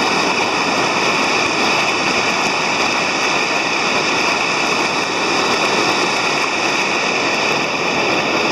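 Water rushing steadily down a dam's stepped concrete fish ladder and out of its spillway: a constant, even rush of falling water.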